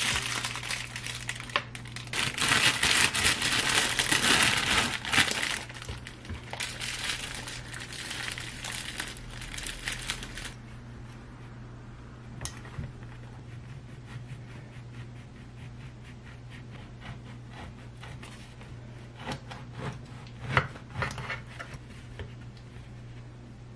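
Thin plastic produce bag crinkling as a bunch of bananas is handled, for about the first ten seconds, loudest early on. After that it goes quieter, and a few short scrapes come near the end as a bread knife cuts through a bagel, over a low steady hum.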